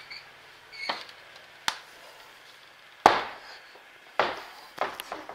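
A handful of sharp knocks and thumps at irregular spacing in a small room. The loudest comes about three seconds in and rings on briefly.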